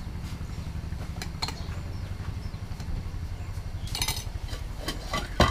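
Bowls and utensils clinking a few times as they are handled on a counter, the loudest clink near the end, over a steady low engine-like rumble.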